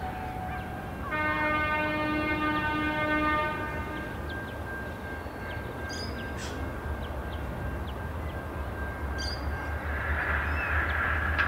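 EL class diesel locomotive sounding its horn in one steady blast of about two and a half seconds starting about a second in, then the low rumble of its diesel engine growing louder as it approaches.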